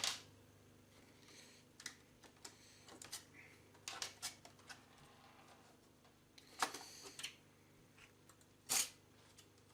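Scattered small clicks, taps and scrapes of a screwdriver and screws being handled against a PS4 Slim's plastic casing, a few sharper clicks standing out, over a faint steady hum.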